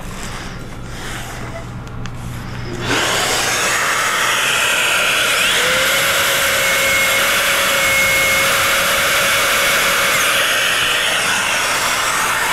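Makita track saw spinning up about three seconds in, then running steadily as it plunge-cuts through plywood along its guide rail, with dust extraction drawing through its hose.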